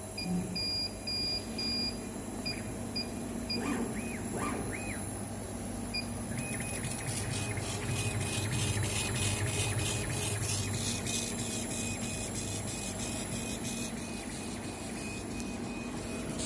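Kamach 6090 CO2 laser engraving machine at work. A series of short beeps comes first. Around four to five seconds in, the motors rise and fall in pitch a few times as the head moves. From about six seconds on there is a steady whine with rapid, even ticking as the head shuttles back and forth, over a constant low hum.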